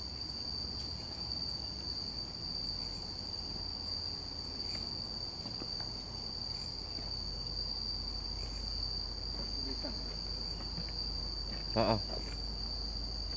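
Night insects trilling in one continuous, steady high-pitched tone. A short burst of a person's voice comes in near the end.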